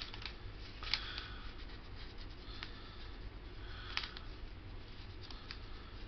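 Scratch-off lottery ticket being scratched: short scratchy strokes and light clicks in a few quiet spurts, over a low room hum.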